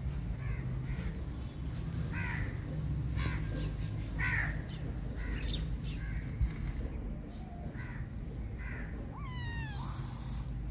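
Kittens mewing in short, high calls about once a second, with one longer, wavering meow near the end.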